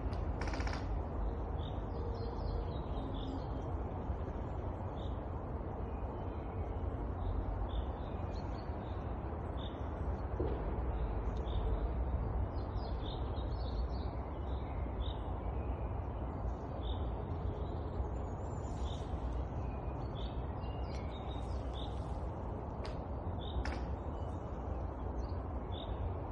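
Wind through a pine forest with a steady low rumble, small birds chirping over and over, and a pine trunk creaking now and then in long, thin drawn-out tones.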